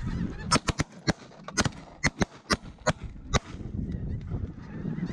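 A rapid volley of shotgun fire from several hunters shooting at snow geese overhead: about a dozen shots, closely spaced, over roughly three seconds, stopping about three and a half seconds in.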